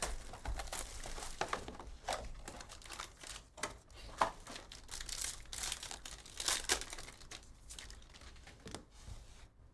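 Plastic and foil packaging of a trading-card box crinkling and tearing as it is ripped open, an irregular run of crackles with a few sharper ones.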